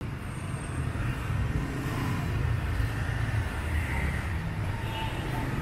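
Steady rumble of road traffic on a city street.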